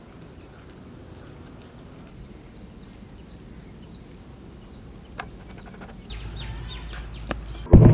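Faint outdoor ambience with scattered high bird chirps; from about six seconds in a low steady rumble comes in with a few clicks. Just before the end a sudden loud hit breaks in.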